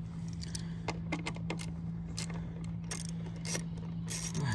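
Socket ratchet wrench clicking in short, irregular runs as a bolt on a push-mower engine is turned, with metal tool clinks. A steady low hum runs underneath.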